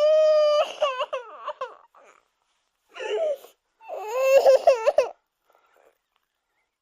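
Baby crying: a long wail, then broken, hiccuping sobs, and after a pause a second, louder stuttering burst of crying that stops about five seconds in.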